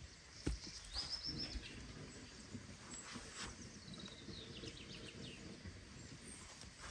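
A plastic cat flap clacks once as a kitten climbs out through it. Small birds call in the background: a high, held whistle about a second in and a quick run of short falling chirps around the middle.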